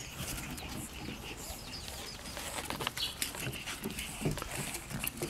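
Pug puppies playing, making faint, scattered little noises, with a few light taps.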